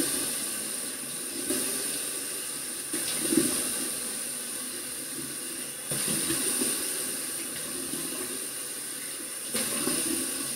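Water running from a bathroom sink tap, a steady rush with louder splashes a few times as a washcloth is rinsed to wash soap off the face.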